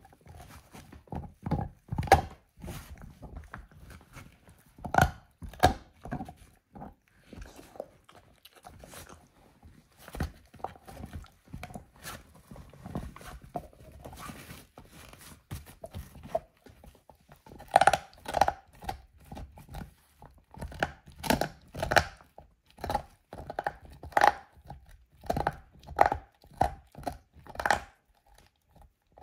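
A dog gnawing a lamb-bone chew: irregular sharp cracks and crunches as its teeth work the bone. They come thicker and louder in the second half.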